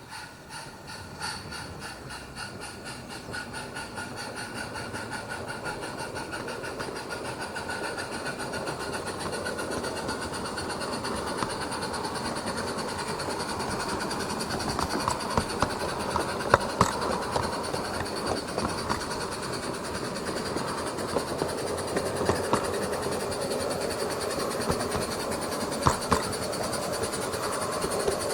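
SM32 garden railway goods train running on its 32 mm gauge track, growing steadily louder as it approaches, with its wheels clicking over the rail joints.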